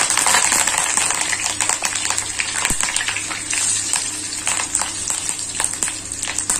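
A handful of fresh curry leaves crackling and sizzling in hot oil, stirred with a slotted spatula. The crackle is loudest at the start and eases off gradually toward the end. That easing is what the cook waits for before lifting the leaves out.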